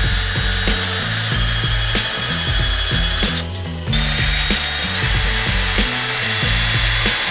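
Cordless drill spinning a sanding disc against the end of a wooden stick, sanding its square edge round, with a high whine that cuts out for a moment about three and a half seconds in. Background music plays along.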